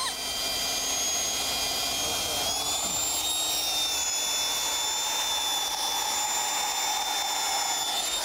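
Power drill running under load, boring a 1 3/8-inch self-feeding wood bit on an extension through a wooden house sill: a loud, steady motor whine over the noise of the bit cutting wood, its pitch stepping slightly higher about two and a half seconds in.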